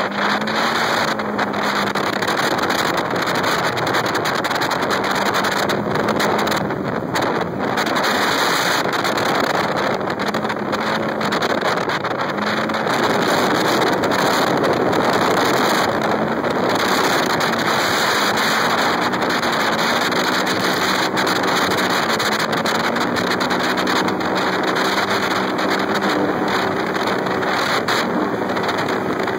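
Polaris RZR 900 XP side-by-side driven hard over sand dunes: its parallel-twin engine runs under load, pitch rising and falling with the throttle, beneath heavy wind noise on the microphone.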